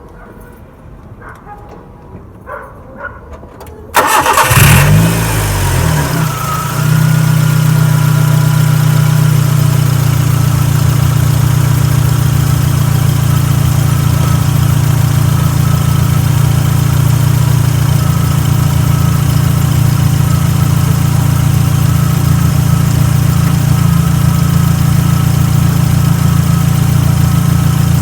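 Car engine cranked by the starter about four seconds in, catching after a couple of seconds and settling into a steady idle. The freshly tightened accessory belt runs without squealing.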